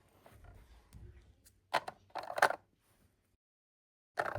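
Small hard plastic miniature toy groceries and toy fridge parts clicking and clacking as they are handled and set in place: one sharp click a little under two seconds in, and a quick cluster of clacks half a second later. The sound then cuts to dead silence for nearly a second.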